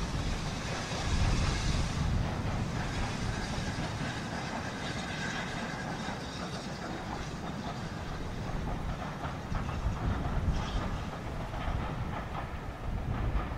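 Steam-hauled train running along the line, with a steady rushing noise and an uneven low rumble of wind on the microphone.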